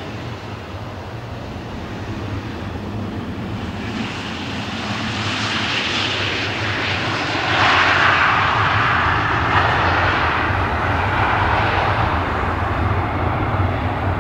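Airbus A320 jet engines running as the airliner rolls out after touchdown, a rushing roar that grows louder from about four seconds in, peaks around eight seconds and stays loud.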